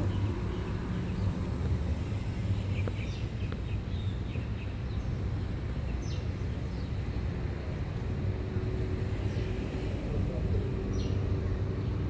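Outdoor background: a steady low rumble with a few short, high bird chirps scattered through it, about three seconds in, around six seconds and again near the end.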